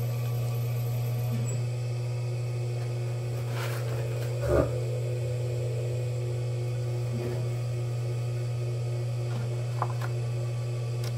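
Electric potter's wheel motor running with a steady low hum as the wheel head spins, and a single short knock about four and a half seconds in.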